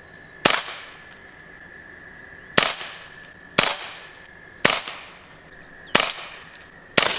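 Six sharp shots from a 1964 Crosman 600 .22 CO2 semi-automatic pellet pistol, fired one to two seconds apart as the CO2 cartridge is emptied. Each crack has a short fading tail.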